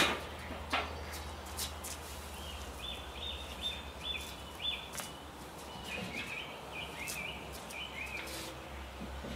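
A songbird singing two runs of quick, high chirps, each lasting a couple of seconds, with scattered light clicks and knocks from fish fillets being laid on a metal smoker grill and the lid being set on.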